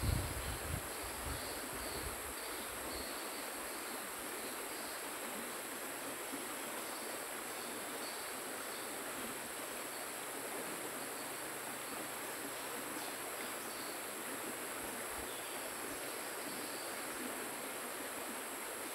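Steady rush of a shallow river flowing, with a constant high drone of insects over it. A few low thumps in the first couple of seconds.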